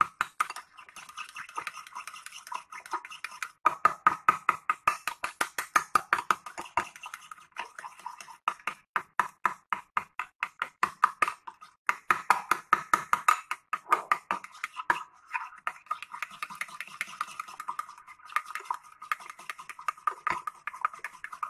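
A spoon stirring thick mayonnaise sauce in a small ceramic bowl, clicking and scraping against the bowl in quick, even runs several times a second with short pauses.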